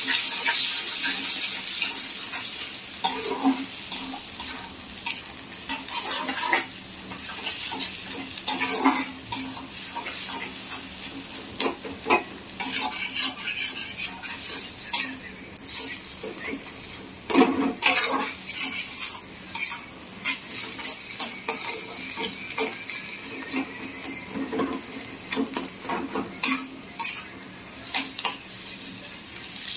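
Eggs and vegetables sizzling in a black kadai while a flat metal spatula stirs and scrapes them around the pan in quick, irregular strokes, scrambling the eggs. The sizzle is loudest in the first few seconds.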